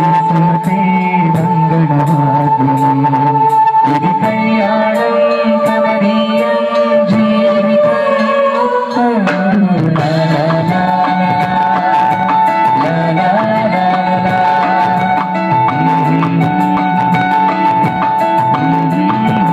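Live band music: amplified singing over keyboard and drum kit, with a held keyboard tone and a regular drum beat. The melody shifts about nine seconds in.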